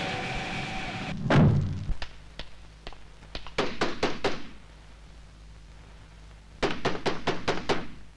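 A car door slams shut with a heavy thunk about a second in. Then knuckles knock on a wooden door: a first set of knocks, a pause, and a quicker run of about seven knocks near the end.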